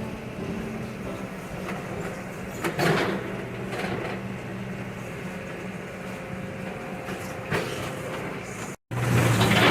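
Excavator diesel engine running steadily, with occasional scrapes and clanks of steel debris being moved. Near the end the sound drops out for a moment and comes back louder, with busier clattering.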